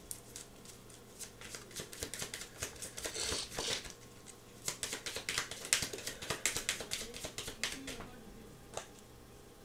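Deck of oracle cards being shuffled by hand: a string of quick card snaps and flicks, with a longer papery swish about three seconds in and a dense run of snaps after it.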